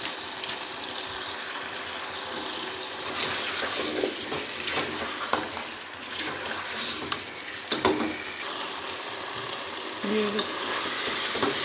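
Chicken and potato pieces sizzling as they fry in oil and spices in a pot, the bhuna stage of an aloo gosht curry, with a spatula scraping and knocking against the pot as they are stirred.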